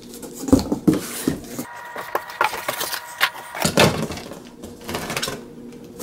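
Cardboard box flaps being pulled open and handled: irregular scraping, rustling and knocks of corrugated cardboard.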